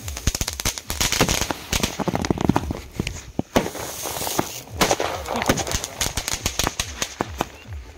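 Aerial fireworks bursting overhead in a rapid, irregular string of cracks and crackling pops, with a few louder bangs among them.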